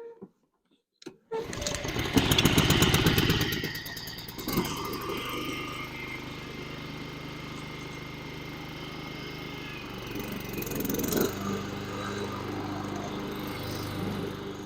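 Honda walk-behind lawnmower's small four-stroke engine starting about a second in, running loudest for the first couple of seconds, then settling to a steady run, briefly picking up again about two-thirds of the way through.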